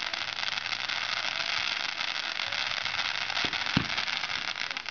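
Fireworks going off at ground level: a steady dense fizzing crackle, broken by two sharp pops in quick succession about three and a half seconds in.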